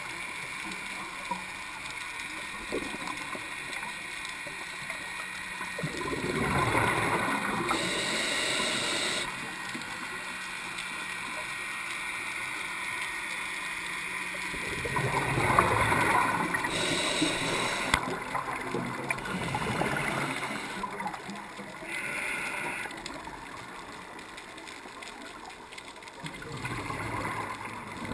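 A scuba diver breathing underwater through a regulator: a steady rushing hiss, broken every few seconds by louder gurgling bursts of exhaled bubbles.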